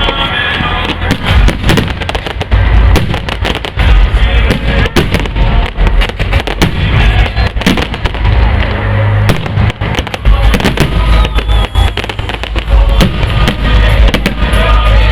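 Fireworks display: a loud, rapid, continuous barrage of bangs and crackles with deep booms, and music playing along.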